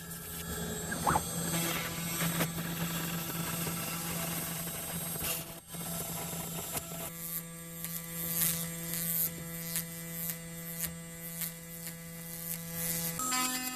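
CNC router spindle running at about 10,000 RPM while a flat surfacing cutter skims the top of a UHMW plastic plate, giving a steady hum with a hissing cutting noise. About halfway through, the cutting hiss drops away, leaving the spindle's hum and light ticking. Near the end the hum jumps higher in pitch.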